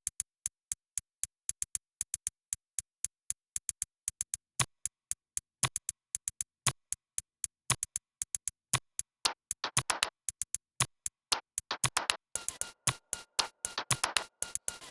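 A percussive beat made of sampled found sounds: short, sharp clicks and ticks in a repeating rhythm. It grows denser as it goes, and about twelve seconds in a layer of hiss with a faint steady tone joins it.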